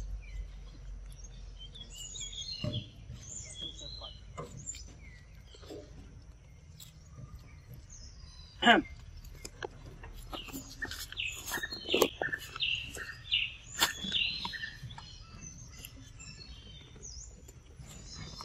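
Small birds chirping on and off, with several sharp knocks and taps, the loudest about nine seconds in and a cluster a few seconds later.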